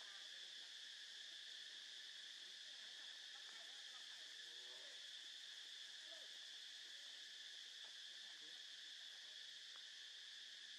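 Faint, steady, high-pitched insect chorus, with a few faint short calls from some other animal about four to five seconds in.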